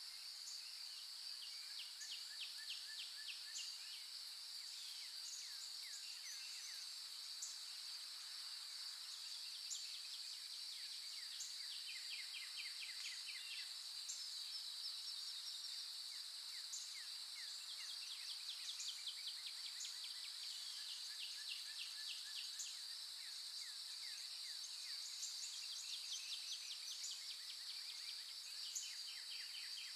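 Insects droning steadily at a high pitch, with repeated bursts of rapid chirping trills over it.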